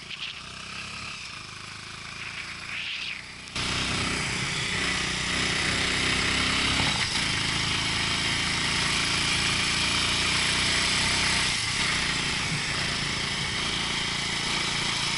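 Motorcycle engine running steadily under way, with the rush of wind and road noise. The sound is quieter for the first few seconds, then jumps louder about three and a half seconds in and stays steady.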